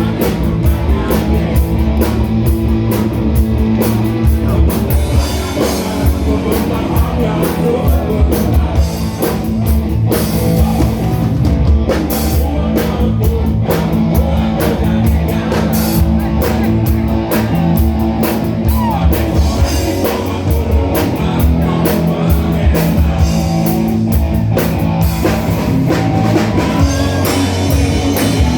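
Live rock band playing, with a drum kit driving a steady beat under guitars and bass.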